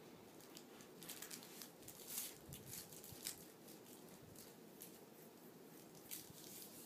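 Faint rustling and light scratching of a puppy squirming on its back on blankets and plush toys, with a few soft ticks around two to three seconds in.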